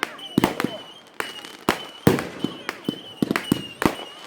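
Consumer fireworks going off: about fifteen sharp bangs and pops at uneven intervals, some in quick clusters.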